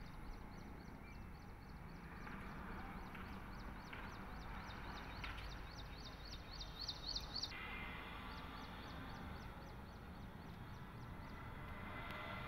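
A fast, even series of short high chirps from a small animal, about four a second, over a faint steady low rumble; the chirps stop suddenly about seven seconds in and fainter ones return a moment later.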